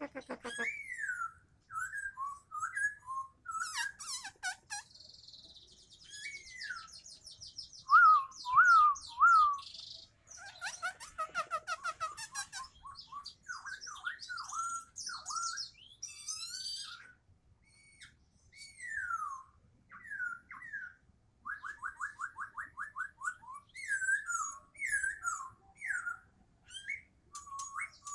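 Poksay Hongkong laughingthrush in full song: a string of varied whistled phrases and falling slurs, a fast trill, and bursts of higher chattering notes between them.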